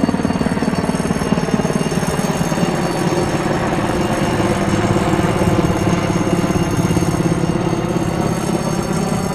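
Cougar twin-turbine transport helicopter flying past overhead, its main rotor giving a fast, steady chopping beat over the engine noise.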